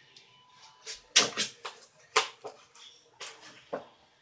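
A handful of short, sharp taps and knocks at uneven intervals, about seven of them.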